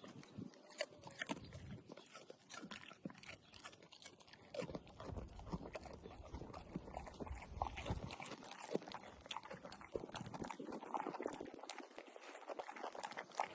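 A dog chewing and crunching a piece of cucumber, with many irregular crisp crunches and bites.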